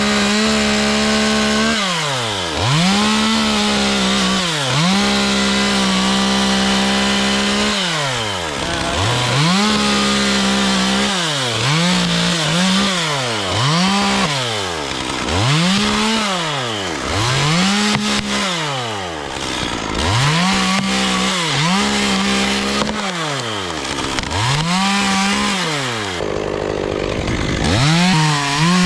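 Chainsaw running at high speed. The throttle is released and opened again about every two seconds, so the engine note drops away and climbs back to full revs ten or so times. Near the end it falls to a lower, rougher idle for a couple of seconds before revving up again.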